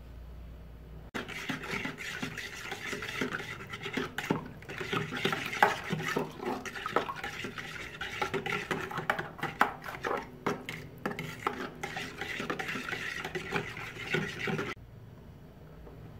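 A utensil stirring a thin mix of water, yeast and milk powder in a ceramic bowl, with fast scraping and clicking against the bowl. It starts about a second in and cuts off suddenly near the end.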